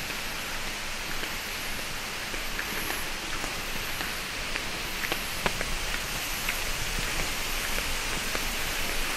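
Steady outdoor hiss with scattered faint ticks, the ticks coming more often after about five seconds.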